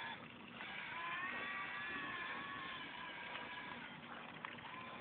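Motor and propeller of an RC Snoopy Red Baron plane whining at a fairly steady pitch. The whine cuts out briefly at the start, weakens in the middle and picks up again near the end, with a single sharp click shortly before the end.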